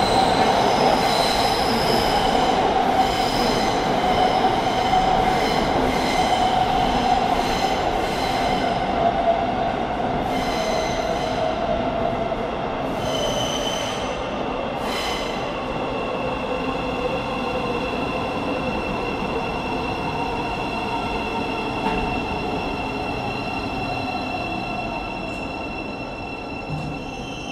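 Thameslink Class 700 electric multiple unit pulling in and braking: a whine that slowly falls in pitch over the rumble of the wheels, with high wheel squeal and a few clicks in the first half. The sound fades gradually as the train slows.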